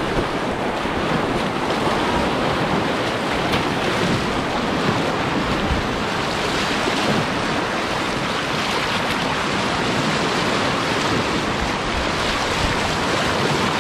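Steady rushing of whitewater river rapids.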